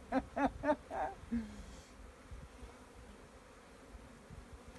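Honey bees humming around an opened hive as a frame is lifted out: a faint, steady drone. A person's voice is heard in the first second.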